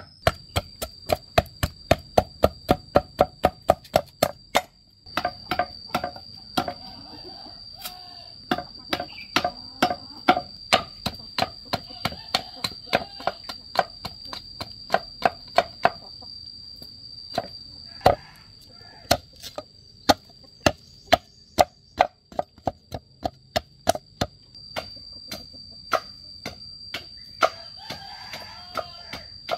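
Machete chopping and splitting bamboo: a long series of sharp, ringing strikes, about three a second at first, then more irregular with short pauses.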